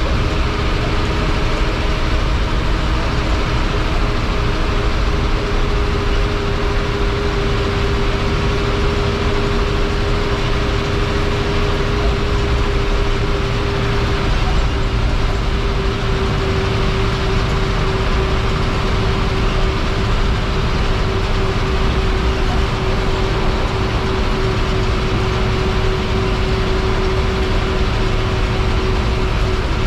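Ashok Leyland bus diesel engine running at steady cruise, heard from the driver's cabin beside the engine cover: a constant low drone with a steady whine over tyre and road noise.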